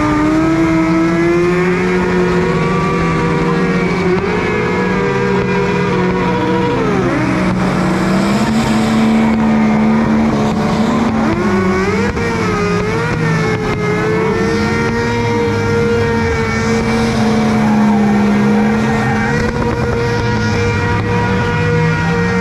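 Sport motorcycle engine held at high revs, its pitch sliding up and down as the throttle changes.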